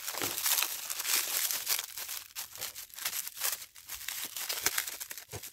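Parcel packaging crinkling and tearing as it is cut and pulled open with scissors: a dense, irregular run of crackles and rustles.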